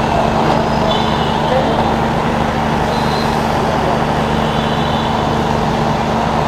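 A motor vehicle engine idling: a steady, even drone with a constant low hum. Faint voices sound underneath.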